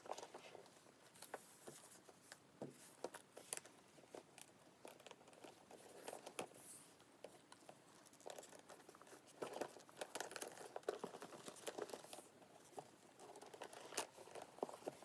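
Hands handling a leather crossbody handbag and its detachable strap. Soft rustling and rubbing of leather, with irregular light clicks and taps from the metal strap clips and hardware.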